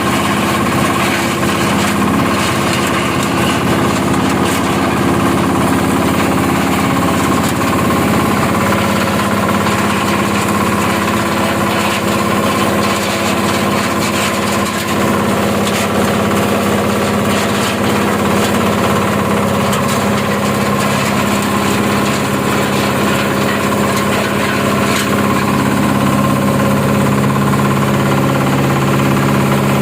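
Areca nut peeling machine running steadily with an even, engine-like hum.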